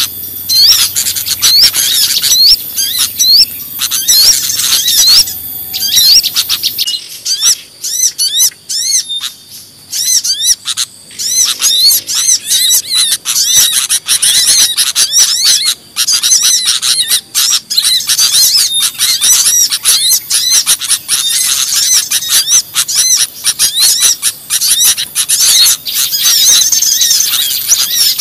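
Many small songbirds chirping and twittering over one another in a dense, loud chorus: a bird-lure recording of noisy small birds meant to draw other birds in. The mix changes about seven seconds in, where the low background drops away.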